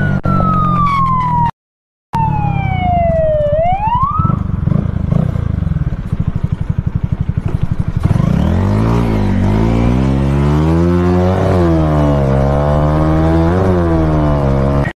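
A siren wail that falls and then swings back up over the first four seconds, above a motorcycle engine running. From about eight seconds the engine revs rise and fall several times as the bike accelerates.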